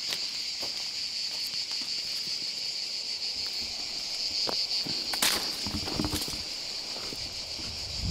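Steady, high-pitched chorus of summer insects in a sunny vegetable garden, unbroken throughout, with a sharp click about five seconds in and some low rustling of plants being handled near the end.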